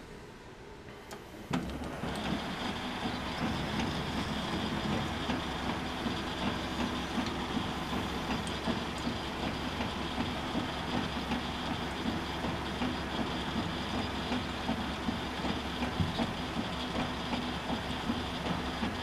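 Metal lathe starting up about a second and a half in, then running steadily at slow speed with a rhythmic clatter and a steady high whine, as a tailstock-held drill bit is fed toward the bore of the workpiece.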